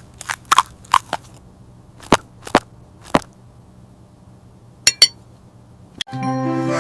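A series of short, sharp clicks and taps, about a dozen spread unevenly, two of them with a brief ringing clink about five seconds in, over a faint low hum. Children's music starts near the end.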